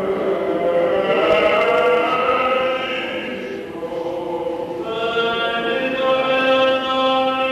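Byzantine chant of the Greek Orthodox Divine Liturgy: slow singing with long held notes that step from pitch to pitch, a new phrase starting about five seconds in.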